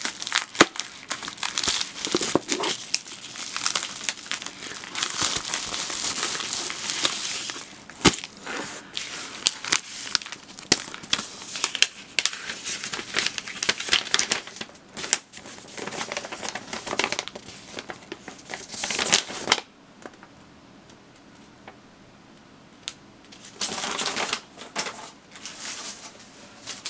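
Plastic bubble mailer crinkling and rustling as it is pulled open and handled, with scattered sharp clicks. The crinkling stops for a few seconds about three-quarters of the way through, then starts again briefly.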